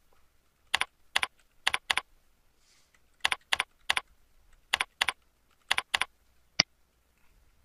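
Computer keyboard keystrokes: about eleven short clicks in uneven clusters of two or three as a user ID and password are typed into a web form, followed near the end by one single sharper click.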